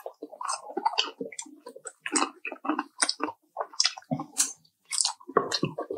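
Close-up chewing of fried chicken: irregular, quick smacks and squelches of mouth and food, several a second, with no speech.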